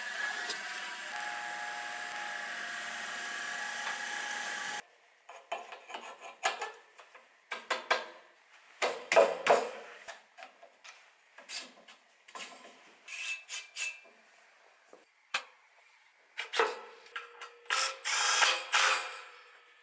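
A drill bit boring into a steel ring clamp: a steady cutting noise with a faint whine that stops abruptly about five seconds in. After that come scattered scrapes and metallic knocks as the metal parts are handled and fitted together.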